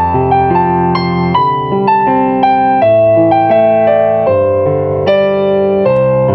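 Background piano music: a melody of single notes changing about twice a second over held lower notes.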